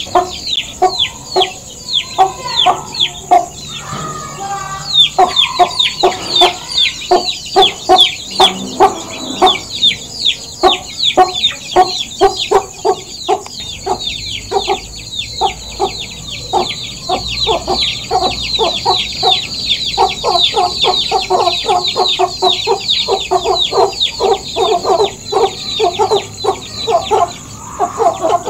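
Chickens clucking in a rapid, unbroken run of short calls, the 'gog gog gog' that chickens make as they settle down to sleep. The calls come about three or four a second and grow quicker and denser in the second half.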